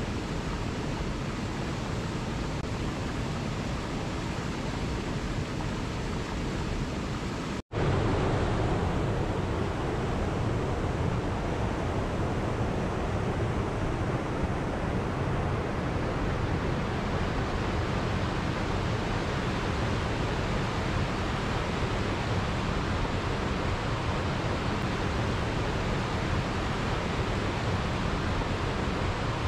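Mountain stream rushing over rocks and small waterfalls: a steady rush of water. About a quarter of the way in it cuts out for an instant and comes back a little louder and fuller.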